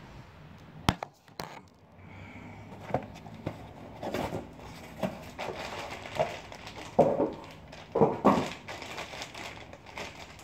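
Handling noise: two sharp clicks about a second in, then irregular rustling and crinkling, with louder bursts near the end, as parts and the phone are handled at close range.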